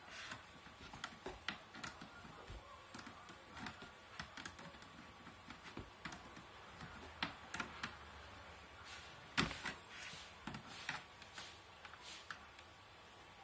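Irregular light clicks and taps of hands fitting wire connectors inside a metal amplifier chassis, the sharpest about nine and a half seconds in.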